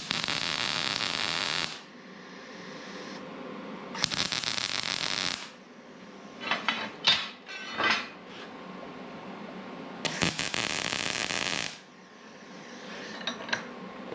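Three short bursts of welding crackle, about a second and a half each, tacking steel pieces of a fabricated support together, with a few metal clinks between the second and third.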